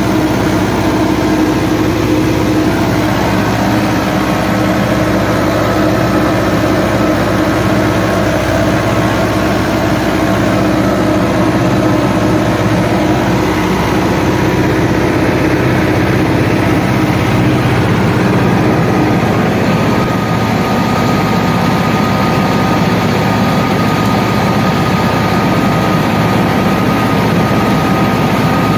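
Farm tractor engine running steadily while pulling an implement across a field, heard up close from the driver's seat. A thin steady whine joins in about two-thirds of the way through.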